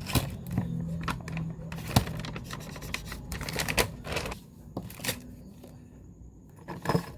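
Irregular sharp clicks and taps of small objects being handled at close range, thinning out after about four seconds.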